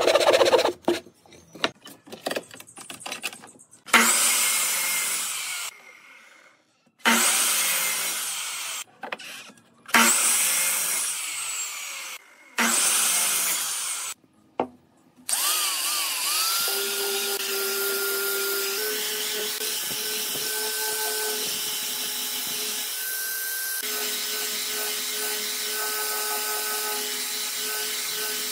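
A few short hand-saw strokes on wood, then a compound miter saw making four separate short cuts, each a loud burst that fades as the blade spins down. Then an angle grinder with a sanding drum spins up and runs steadily with a whine, sanding a curved wooden piece.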